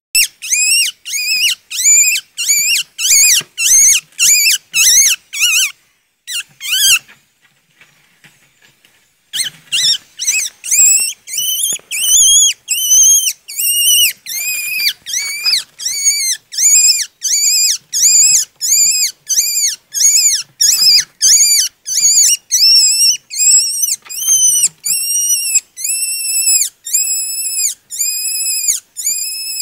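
Newborn mink kit crying while held in a hand: a long string of high-pitched cries, about two a second, each rising and then falling in pitch. The cries break off for a couple of seconds about a quarter of the way in, then go on, growing longer and slower near the end.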